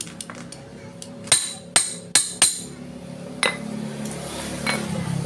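Hammer striking a steel pipe used as a drift to drive a new rear wheel oil seal into a scooter's gearbox cover. Four sharp, ringing metal strikes come in quick succession about a second in, followed by two lighter taps.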